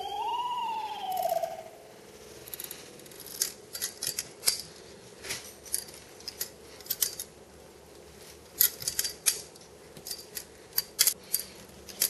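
Balisong (butterfly knife) being flipped: irregular sharp metallic clicks and clacks of the handles and blade swinging and knocking together, coming in quick clusters with short pauses between tricks.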